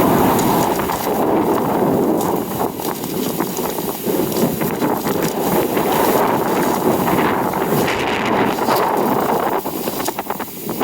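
Strong gusting wind buffeting the microphone: a loud, continuous rushing noise that surges and eases, dipping briefly near the end.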